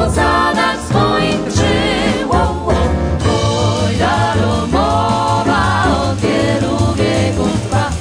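Four-voice jazz vocal group singing in harmony, backed by piano, double bass and drums. About three seconds in, the voices move from quicker phrases to longer held notes.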